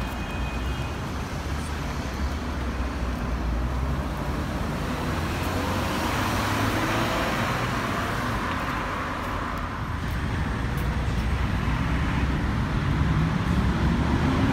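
Road traffic on a busy city street: tyre and engine noise from passing cars, swelling as one goes by about halfway through, and a heavier vehicle's engine rising in pitch as it accelerates near the end.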